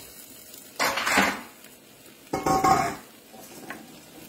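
Spatula scraping and clattering against a wok as crab pieces in their shells are stirred, in two bursts, about a second in and again near three seconds.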